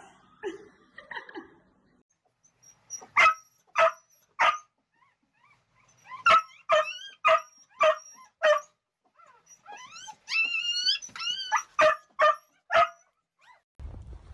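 A dog barking in short, high-pitched yaps: three, then a run of five, then a drawn-out whine, then three more yaps.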